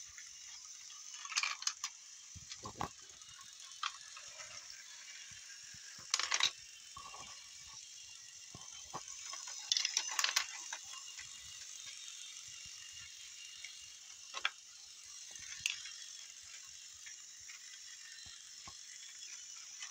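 Battery-powered Tomy Tomyville toy train running on plastic track: a steady high whir of its small motor and plastic gears, with sharp clicks and rattles every few seconds, a cluster of them about ten seconds in.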